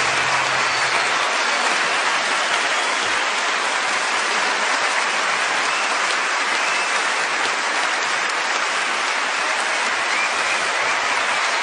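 A crowd applauding steadily: a dense, even clatter of clapping that neither builds nor dies away.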